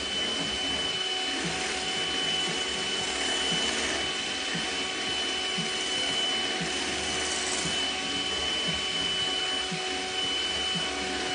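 Electric hand mixer running steadily at a raised speed, its beaters whipping heavy cream in a glass bowl, with a steady high motor whine over the whir.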